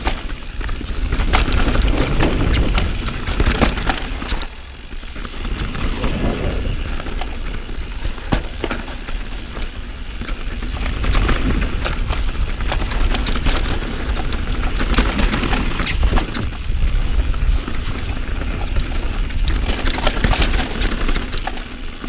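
Mountain bike descending a dirt trail: tyres crunching over dirt and stones, with many sharp clicks and rattles from the bike over bumps. A steady low rumble of wind on the microphone runs under it all.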